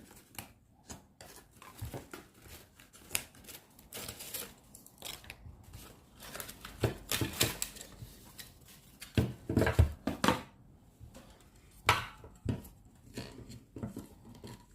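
Toy packaging being handled and worked open: irregular rustling, clicks and scraping, with a burst of louder knocks about ten seconds in and a sharp knock near twelve seconds.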